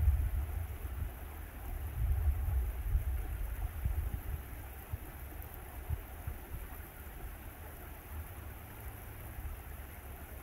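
A small stream flowing with a steady rushing wash, overlaid by a gusty low rumble of wind buffeting the microphone that is heaviest in the first few seconds and then eases.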